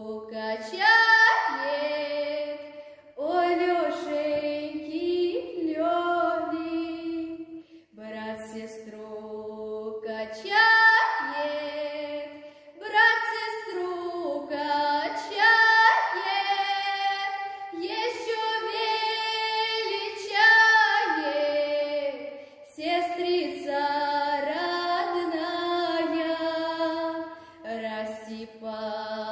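A teenage girl singing a Russian folk song solo in folk vocal style, with held notes and slides between them, phrase after phrase with short breath pauses.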